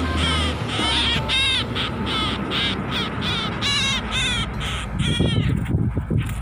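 Harsh, repeated distress calls of a small brown songbird held in the hand after being trapped, about two or three calls a second. Near the end, soft wing flaps as it struggles in the hand.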